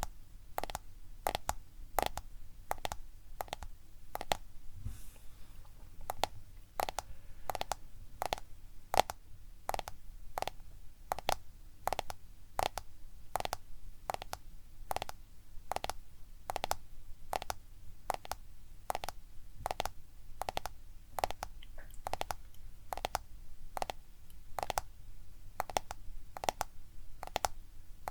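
Fingertips or nails tapping on a smartphone for ASMR: a steady run of crisp taps, nearly two a second.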